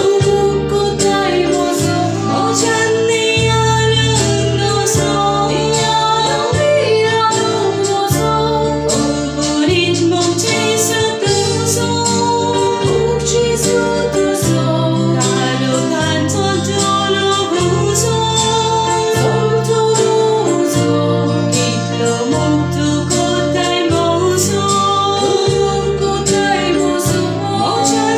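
Konkani Christian hymn: a singer over keyboard-led backing music, with a bass line changing note about every second and a half and a steady percussion beat.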